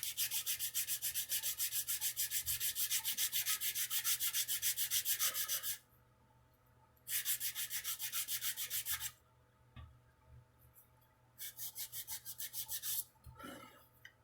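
Sandpaper rubbing back and forth on a wooden guitar neck in quick, even strokes, about four a second. It comes in three bouts: a long one, then two shorter ones after brief pauses.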